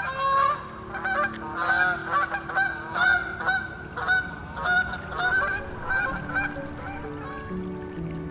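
A flock of geese honking, with many overlapping calls about twice a second that thin out after about six seconds.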